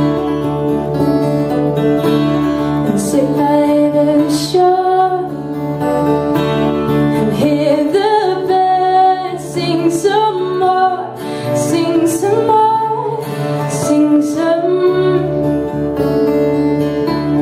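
A woman singing a folk song, accompanied by two acoustic guitars played live.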